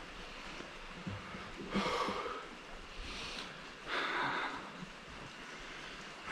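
A man breathing hard close to the microphone: three short, breathy exhalations about two, three and four seconds in, over a faint steady background hiss.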